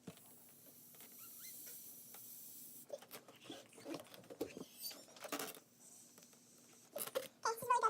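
Rubber balloon squeaking in short, uneven bursts, with a louder run of squeals near the end.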